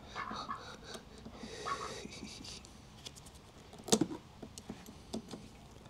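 Faint scraping and small plastic clicks of hands working a fuse out of a car's fuse box, with one sharper click about four seconds in.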